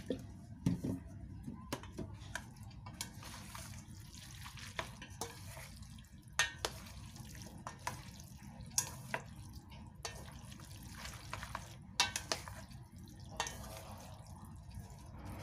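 Chopsticks and a wooden spatula tossing noodles and vegetables in a stainless steel mixing bowl: irregular sharp clicks and taps of the utensils against the metal bowl, over a steady low hum.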